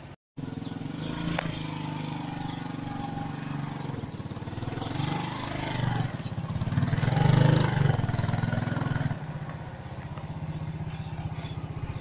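Small underbone motorcycle engine running steadily; it rises in pitch and loudness about six to eight seconds in as the bike pulls away with the sidecar trailer, then drops back to a steadier run.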